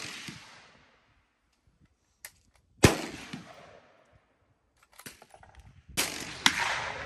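Rifle shots with long echoing tails. One fades out at the start, a loud shot comes about three seconds in, and two more come close together near the end.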